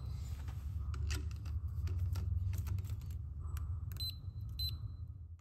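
Hex-bit torque screwdriver tightening the gas block's set screw: scattered small metal clicks and ticks over a steady low hum, with two short high beeps about four seconds in.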